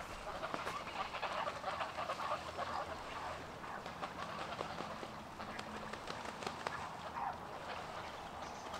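Ducks quacking in a continual overlapping chatter, a group of calls one after another without a break.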